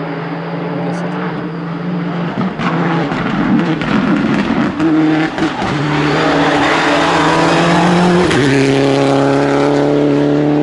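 Citroën DS3 R3 rally car's engine at full throttle, growing louder as the car nears. Its note climbs and drops back at each upshift, most clearly about eight seconds in, with a scatter of sharp cracks.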